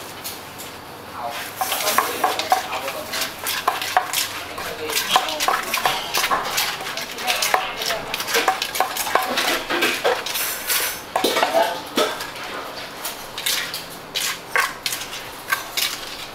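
Papaya salad being pounded and tossed in a mortar with a pestle: an irregular clatter of quick knocks and scrapes that starts about a second in.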